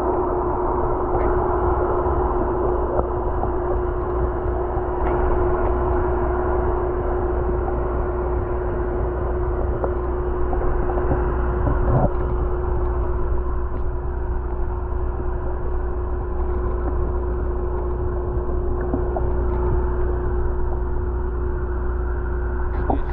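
Muffled underwater sound from inside a boat's live fish tank: a steady mechanical hum at one pitch over a strong low rumble, with a few faint clicks and knocks.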